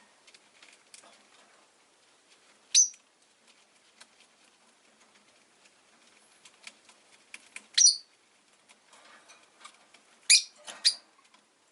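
Rosy-faced lovebirds giving short, sharp, high-pitched chirps: one about three seconds in, one near eight seconds, and two in quick succession near the end, with faint clicking and rustling in between.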